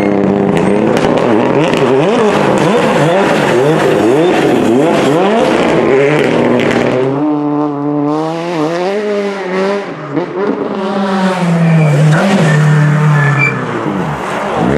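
Rally car engines revving hard out of a hairpin, one car after another, with quick gear changes: each time the pitch climbs, then drops at the shift.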